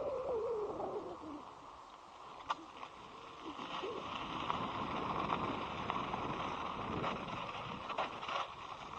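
Electric scooter riding along, heard from a helmet-mounted camera: steady road and wind noise, with a tone falling in pitch over the first second and a half. A few sharp knocks come, one a few seconds in and two near the end.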